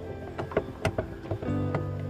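Background music: sustained chords with sharp percussive clicks over them, changing to a new chord about three quarters of the way in.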